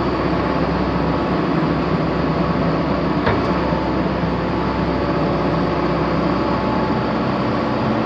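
John Deere 410E backhoe's 4.5-litre four-cylinder diesel engine running steadily, with a single click about three seconds in.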